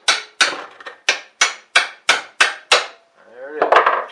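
Hammer striking a chisel wedged under the valve stem of a seized valve in a Briggs & Stratton 5 hp flathead engine block, with sharp metallic blows about three a second to drive the stuck valve up. The blows stop a little under three seconds in, and a short pitched sound follows near the end.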